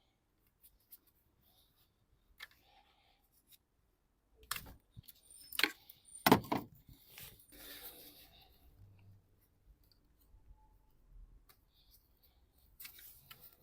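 Hand tools and small parts being handled while working in a car's engine bay: scattered light clicks and clinks, with a short run of sharper knocks midway, the loudest among them just past the middle.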